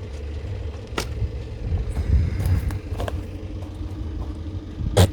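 A steady low rumble in the background with a few sharp clicks and taps, about one, three and five seconds in, the last the loudest, from handling the plastic engine cover and its rubber grommet.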